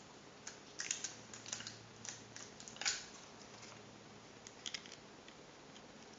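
Faint scattered clicks and light taps from paper and sticky tape being handled, with the sharpest click about three seconds in and a quick cluster of ticks a little before five seconds.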